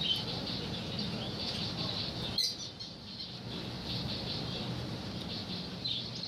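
Many caged birds chirping at once in a dense, continuous chatter, with one sharper, louder call about two and a half seconds in, over a steady low background hum.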